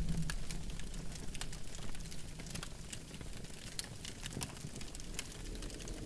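Campfire crackling, with irregular sharp pops and snaps. A low rumble fades out in the first second.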